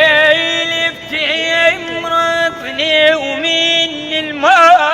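A solo voice singing long held notes with wavering ornaments and short melodic runs, in Iraqi Arabic song style.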